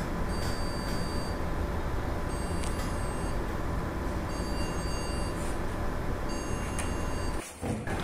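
A Wipro desktop PC's motherboard beeper sounding a repeating beep, about one every two seconds, over a steady hum, just after power-on with no display. It cuts off near the end. It is the warning that the RAM is not making contact, here because of dust on the memory module.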